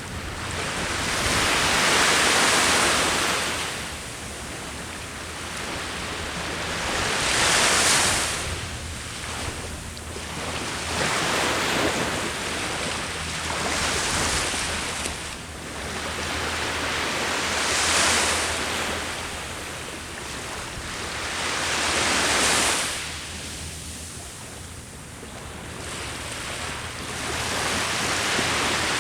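Ocean waves breaking on the shore, the surf swelling and falling back in a surge every three to six seconds.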